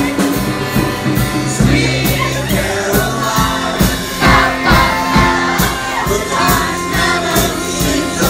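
Karaoke through a PA: a woman sings into a microphone over a live electric guitar and drums, with a steady beat.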